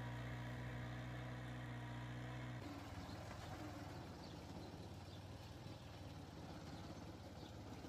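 Mini tractor engine running steadily with an even drone while pulling a plough through soil. About two and a half seconds in it cuts abruptly to another mini tractor, a Mitsubishi, working under ploughing load with a noisier, less even engine sound.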